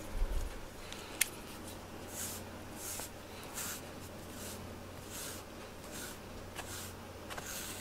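A brush stroking through a cat's fur: a run of soft scratchy swishes, a little more than one a second, from about two seconds in. A dull thump comes right at the start and a click about a second later.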